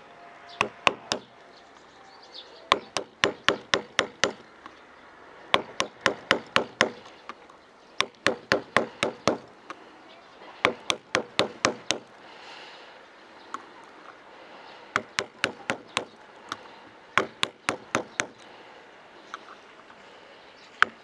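Claw hammer tapping the handle of a screwdriver held point-down on an ostrich egg, chipping a hole through the thick shell: quick runs of sharp taps, about five a second, in repeated bursts with short pauses between them.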